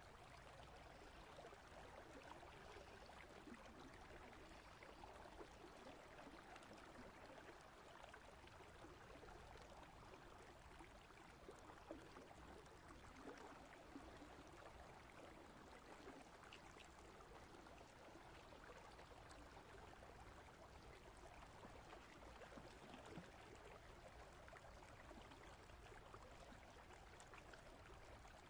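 Faint, steady babble of flowing stream water.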